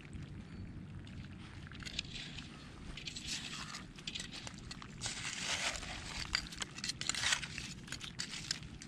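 A hand digging through a beach bed of mussel and oyster shells and gravel for clams, the shells crunching and clattering in irregular bursts that grow busier about halfway through.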